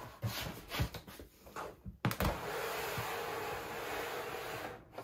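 A few light knocks and clicks as the cutting mat is handled. Then, about two seconds in, a click and a steady motor whir from the Cricut Maker cutting machine, lasting nearly three seconds and stopping abruptly just before the end.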